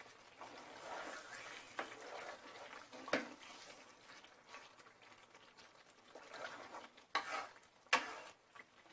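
A spoon stirring a thick chicken curry in a cooking pan, scraping through the gravy with a few sharp knocks against the pan.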